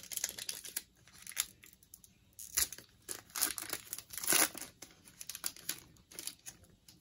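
Football trading-card pack wrapper being torn open and crinkled by hand: a run of irregular crackles, loudest around the middle.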